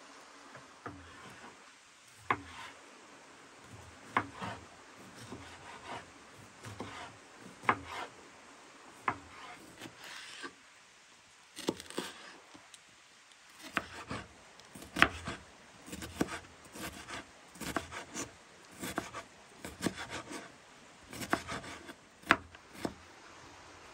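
Kitchen knife slicing and dicing a red bell pepper on a wooden cutting board: crisp knocks of the blade through the pepper onto the board, spaced a second or more apart at first, then coming several a second from about halfway.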